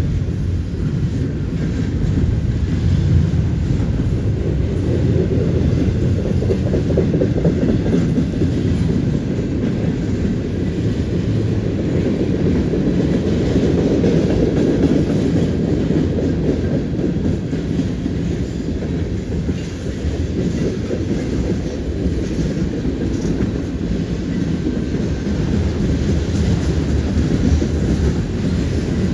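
Freight train rolling steadily past, a loud low rumble of cars and steel wheels clicking over the track.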